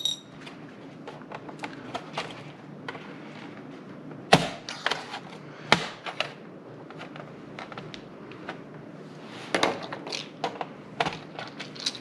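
Plastic clicks and snaps from the bottom case of a Dell Inspiron 3000 laptop being pried apart at its seam with a screwdriver tip. There are two sharper snaps about four and six seconds in and a run of smaller clicks near the end. The case is still held by screws that are not yet fully out.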